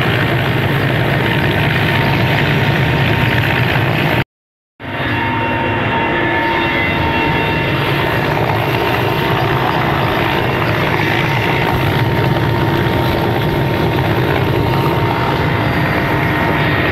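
Mil Mi-17 helicopter's twin turboshaft engines and rotor running steadily and loud. The sound cuts out completely for about half a second around four seconds in, then resumes unchanged.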